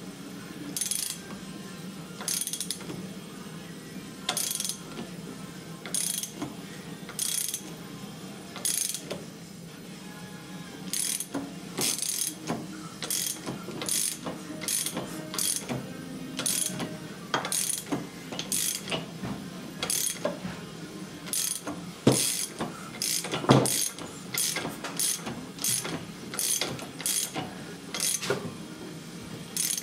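Ratchet wrench clicking in repeated strokes as a freshly rebuilt Yamaha YFZ450 engine is turned over by hand, checking that it spins without binding. The strokes come about once a second at first and quicken to about two a second partway through.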